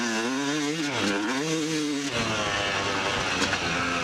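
250cc two-stroke dirt bike engine being ridden, revving up and dropping back twice on the throttle, then easing off to a steadier, lower note about two seconds in.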